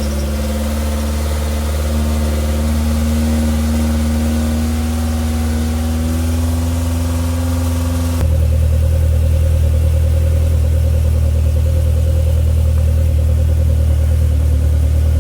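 Rebuilt Ford Duratec engine running steadily while warming up, with a slowly rising tone over the first several seconds; about eight seconds in the sound turns abruptly deeper and duller.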